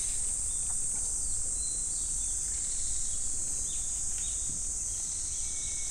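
Steady, high-pitched chorus of insects, with a few faint bird chirps here and there and a low rumble beneath.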